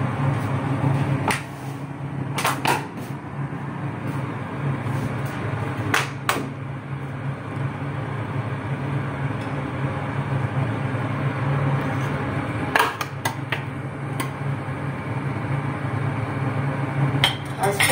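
A steady low kitchen hum, with a few sharp clicks and clanks from a stainless-steel pot and ladle being handled on a gas stove.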